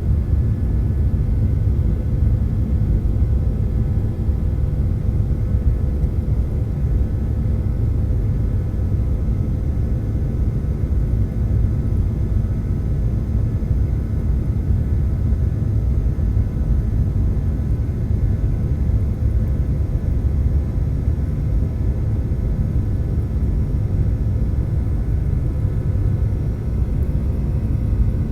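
Jet airliner heard from inside the passenger cabin: a steady low rumble of engines and airflow, with faint steady engine whine tones above it and no change in level.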